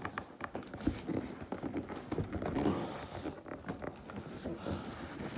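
Cardboard carton being handled, with irregular scraping, rustling and knocks as a boxed vacuum cleaner is worked out of its tight-fitting box.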